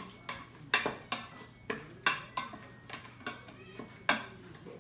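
Wooden spoon stirring and scraping browned stew meat and tomato paste in an Instant Pot's stainless steel inner pot. The spoon knocks against the pot's side irregularly, about every half second.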